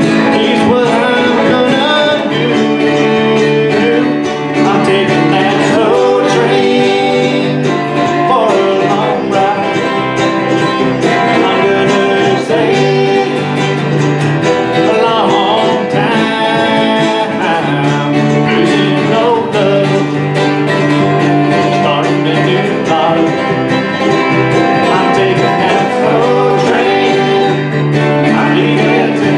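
Live bluegrass band playing: strummed acoustic guitars over a steady electric bass line, with plucked string melody running throughout.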